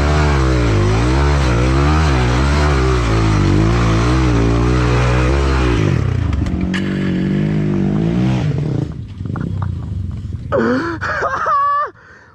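Honda trail motorcycle engine revving hard in repeated waves, pitch rising and falling, for about six seconds. It then drops suddenly to a lower steady note that fades away. A few short voice-like calls come near the end.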